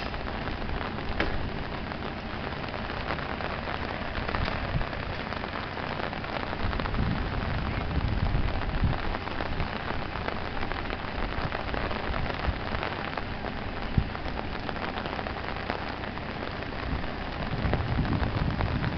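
Heavy rain falling steadily, a continuous hiss of drops hitting surfaces. A low rumble swells up twice, about seven seconds in and near the end, and there is a single sharp tap about two-thirds of the way through.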